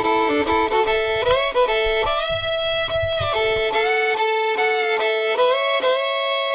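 Background country music led by a fiddle, playing sustained notes with slides between them; an instrumental passage before the singing comes in.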